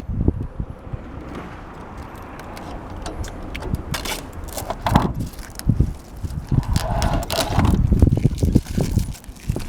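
Gusty wind rumbling on the microphone, with scattered clicks and knocks.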